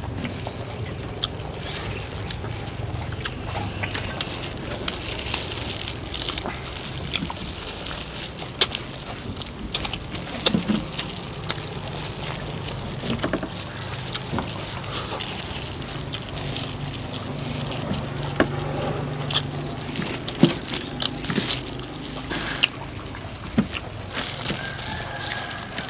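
Wet chewing and lip-smacking from people eating roast duck, with many scattered small clicks and knocks over a low steady hum.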